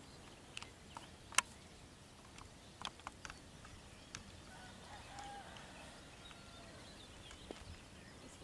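Quiet open-air background broken by a few scattered sharp clicks, with a faint short chirping tone about five seconds in.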